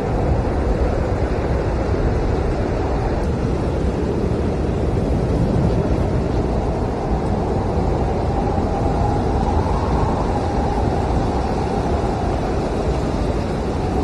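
Blizzard wind blowing hard and steadily, with a faint howling whistle that swells and rises in pitch about two-thirds of the way through.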